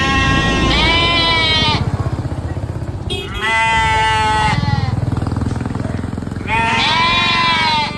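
Sheep bleating: four long, wavering bleats, two back to back at the start, one about three seconds in and one near the end, over a steady low rumble.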